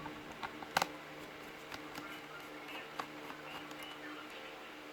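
Light clicks and taps of a screwdriver and fingers working on a laptop's plastic case while its screws are taken out, a few scattered sharp clicks, a double one about a second in, over a faint steady hum.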